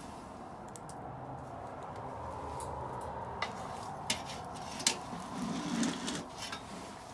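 Wood fire crackling, with a few sharp pops over a low steady rumble.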